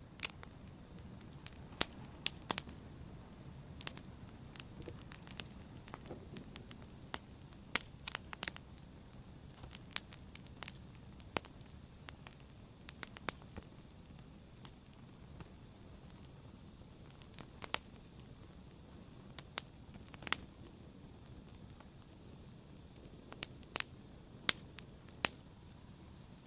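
Wood logs burning in a fireplace: a steady low rush of flame with irregular sharp crackles and occasional loud pops.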